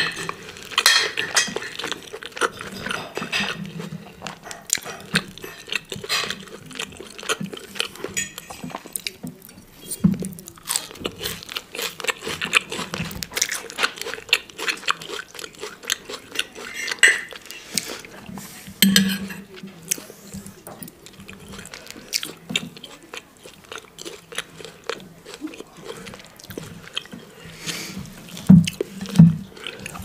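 Close-miked chewing and wet mouth sounds of a person eating Swedish meatloaf and boiled potatoes, with a knife and fork clinking and scraping on a china plate. The loudest knocks of cutlery on the plate come near the end as the food is cut.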